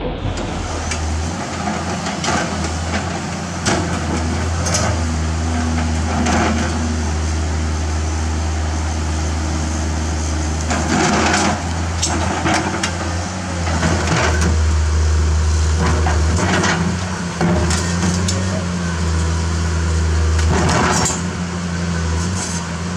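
Komatsu PC210-10 hydraulic excavator's diesel engine running under working load, its drone rising and easing, with the bucket knocking and grinding against river boulders in about a dozen sharp clanks.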